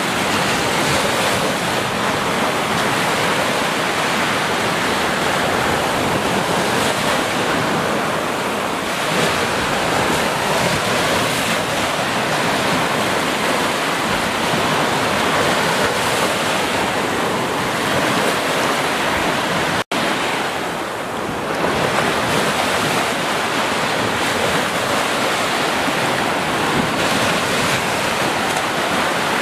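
Ocean surf breaking and washing up a sandy beach, foaming waves making a steady rush. The sound cuts out for an instant about twenty seconds in.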